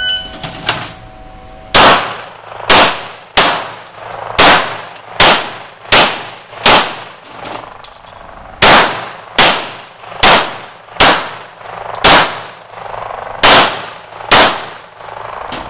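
A shot timer beeps, then a pistol fires on an indoor range: two strings of about seven shots each, with a pause of about two seconds between them. Each shot rings with the hall's echo.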